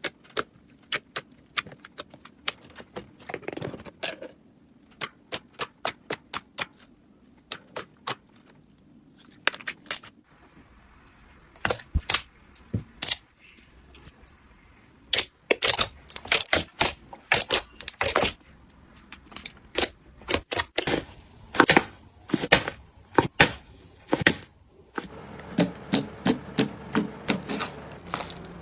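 Crunchy slime being pressed and squeezed by hand, crackling and popping in quick runs of sharp clicks with short pauses between.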